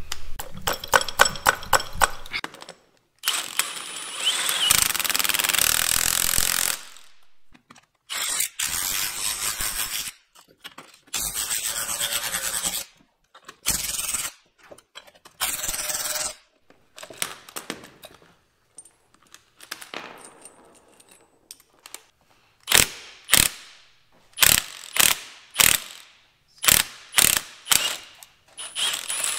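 Cordless impact wrench running in bursts on a coilover shock's spring compressor and top nut. Several long runs in the first half as the coil spring is compressed, then a string of short blips near the end as the top nut is worked loose.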